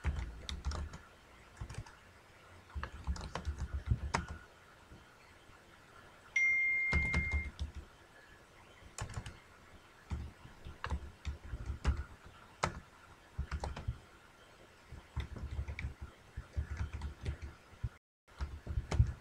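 Computer keyboard typing in scattered bursts of clicks and dull desk taps. About six seconds in, a short high steady beep sounds for about a second.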